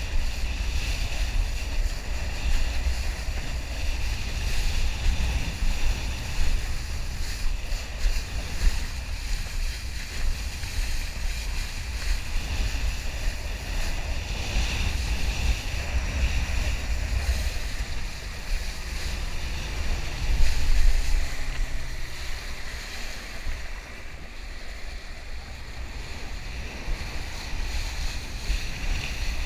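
Wind buffeting the microphone in a steady low rumble over the rush and slap of water under a kiteboard planing across choppy water, with a louder surge about two-thirds of the way through.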